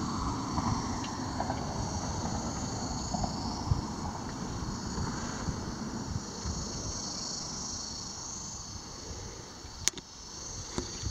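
Steady high-pitched drone of an insect chorus, with wind rumbling on the microphone and a couple of sharp clicks near the end.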